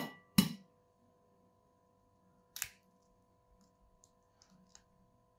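A hen's egg being cracked and its shell opened over a bowl: two sharp taps at the start, another knock about two and a half seconds in, then faint small clicks of shell, over a faint steady hum.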